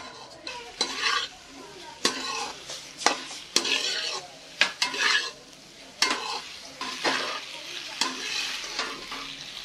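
Long metal spoon stirring and scraping vegetable macaroni in a steel wok, clanking against the pan about once a second, with the food frying.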